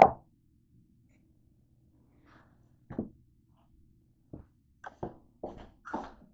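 A sharp knock at the start and another about three seconds in. From about four seconds in, a run of footsteps on a hard floor, about two a second.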